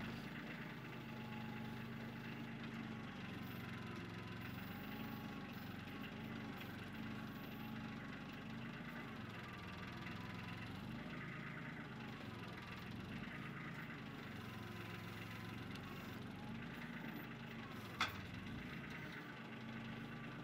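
Kioti CK25 compact tractor's three-cylinder diesel engine running steadily, its note shifting a little now and then. One sharp clank stands out near the end.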